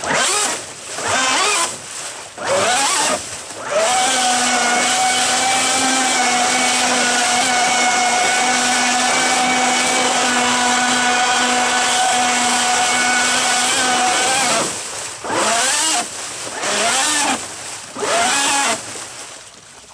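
Electric jet-surfboard drive unit, its brushless motor and jet pump blipped up and down several times, then held at full throttle for about ten seconds with a steady whine over churning, spraying water, then blipped a few more times. At the top it is drawing about 100 amps, near the limit of its 120-amp speed controller.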